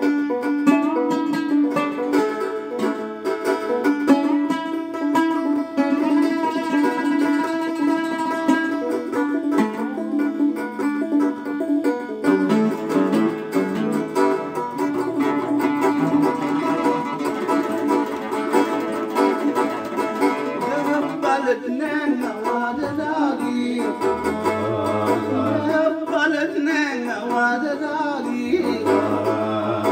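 A Nubian song played on tanbur lyre and oud, plucked strings going steadily; a man's voice comes in singing about halfway through, over the strings.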